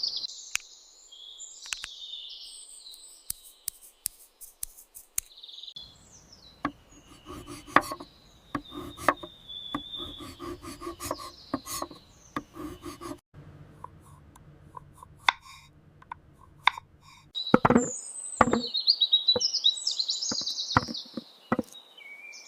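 Birds chirping, with scattered knocks and clicks of small kitchen utensils and a stretch of rhythmic rubbing or scraping in the middle.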